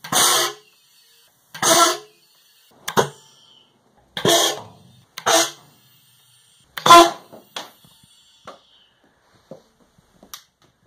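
Homemade compressed-air potato cannon firing six times in quick succession through its sprinkler solenoid valve, each shot a short sudden blast of released air with a pitched ring, roughly a second apart. A few faint clicks follow near the end.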